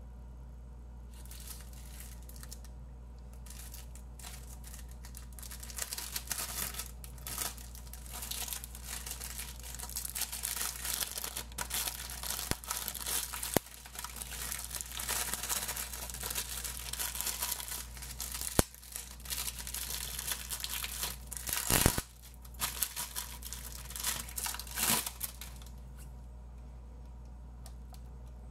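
Clear plastic wrapping being torn and peeled off a hard harmonica case, crinkling and crackling in irregular bursts, with a few loud sharp clicks along the way. It starts about a second in and stops a couple of seconds before the end.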